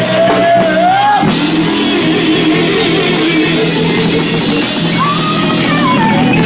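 Live gospel band playing, with drum kit and guitar, and a lead line of held, gliding notes over the top.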